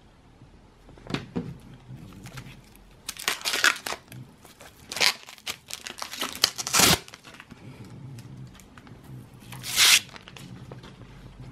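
Clear plastic film being peeled and torn off a portable hard drive, in several short crinkling, ripping bursts.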